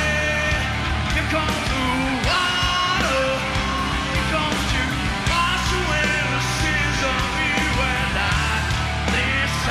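Live rock band playing at full volume, with electric guitar, bass and drums under a male lead singer's yelled vocal.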